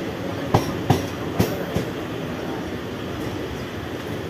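Mumbai suburban EMU local train running, heard from on board: a steady rumble of wheels on rails, with four sharp clicks in two pairs in the first two seconds as the wheels cross rail joints.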